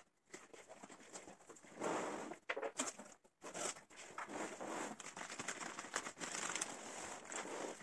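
Cardboard box flap torn open with a rough burst about two seconds in, then the plastic wrapping of the roll-packed mattress crinkling and rustling against the cardboard as it is pulled out of the box.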